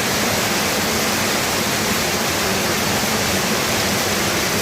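Rain falling steadily, an even hiss of water.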